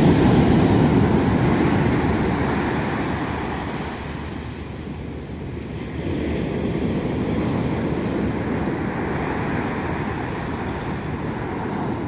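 Surf on a rough sea: waves breaking and foam washing up a sandy beach, a steady rushing that is loudest at the start, eases off about four seconds in and builds again with the next wave about six seconds in.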